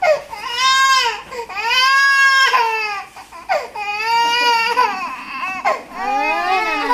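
A baby crying hard in about four long wails, each one rising and then falling in pitch.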